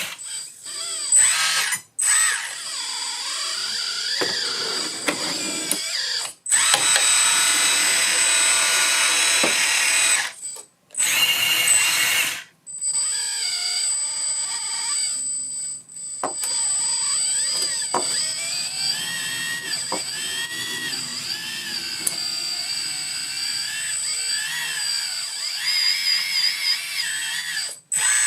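Metal hydraulic RC excavator's electric pump and hydraulics whining as the machine is worked, the pitch wavering with load. It stops and starts again several times.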